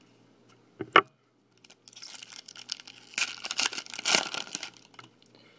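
A single sharp knock about a second in, then a foil trading-card pack wrapper crinkling and tearing open for about three seconds.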